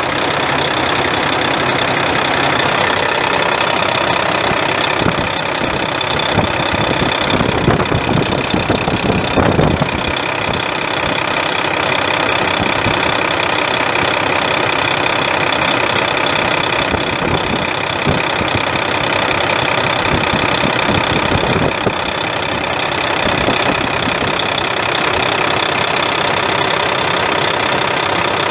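Volvo VE D12 12.1-litre inline-six turbo diesel of a 2001 Volvo VNL semi truck idling steadily, with a louder, uneven stretch around eight to ten seconds in.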